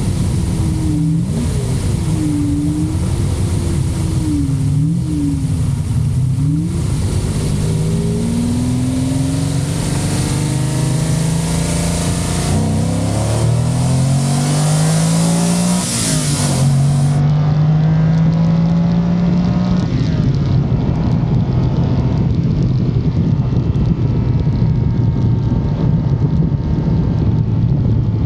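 Lamborghini Countach's 5.2-litre V12 engine driving on the road: revs rise and fall over the first few seconds, then climb in several rising pulls through the gears about halfway through, and settle to a steady cruise for the last ten seconds, under a constant rush of wind and road noise.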